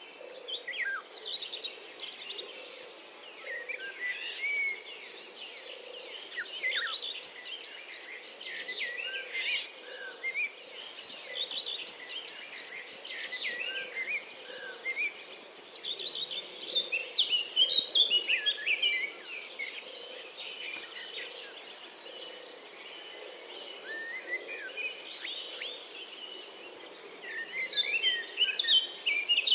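European robin singing: thin, high, varied warbling phrases with short pauses between them, loudest about two-thirds of the way through and again near the end.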